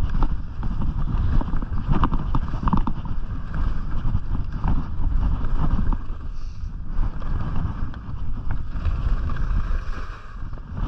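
Wind noise on the microphone of a skier going downhill, heaviest at the low end, with the hiss and scrape of skis sliding over packed snow. It eases off near the end as the skier slows.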